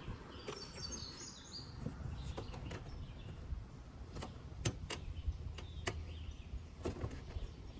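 Plastic push-in grommets clicking as a plastic cover panel is pressed into place, about seven sharp clicks spread through the middle. Birds chirp in the first couple of seconds.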